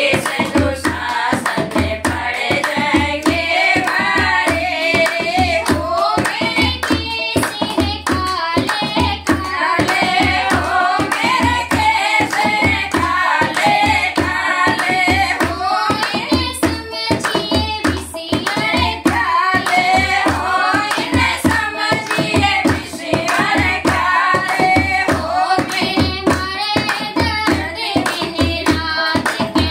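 Women singing a Hindi devotional bhajan together, with a dholak drum beating a steady rhythm and hands clapping in time.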